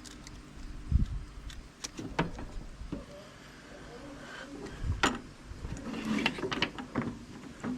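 Scattered knocks and clicks of hand work on a finish mower deck, with a dull thump about a second in and again about five seconds in, as the torn rubber drive belt is cut and pulled out from around the pulleys.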